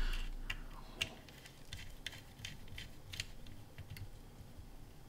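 Faint, scattered small clicks and ticks of a precision screwdriver working a tiny set screw on a stereo microscope's eyepiece tube.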